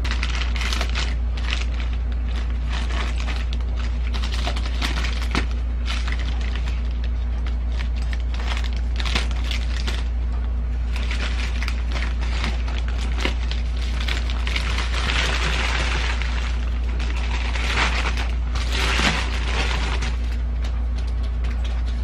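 Plastic mailer bag crinkling and crackling as it is cut open along the top with scissors and the boxed item inside is worked out, with the busiest rustling near the end. A steady low hum runs underneath.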